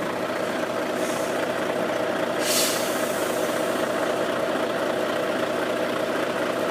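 An engine idling with a steady hum, and a short hiss of air about two and a half seconds in.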